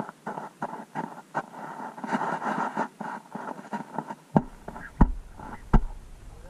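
Boots stepping and shuffling on the ice floor of an ice-fishing shack, heard through a microphone about 6 feet under the ice: a run of muffled clicks and scrapes, then three heavier thumps in the second half.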